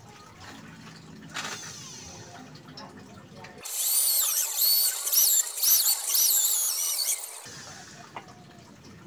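Electric hand drill boring into the end of a teak knife handle, starting about three and a half seconds in and running for about four seconds as a high-pitched whine that wavers up and down. Before it, quieter handling of the wood.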